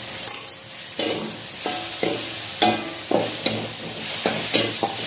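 Metal spatula scraping and knocking against a metal wok about twice a second, over a steady sizzle of ground spice paste and tomatoes frying in oil.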